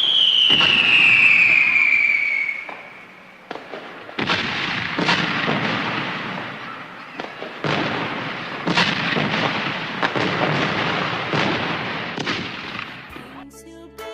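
Aerial fireworks going off: a falling whistle in the first couple of seconds, then repeated bangs in quick succession with crackling between them. Music comes in near the end.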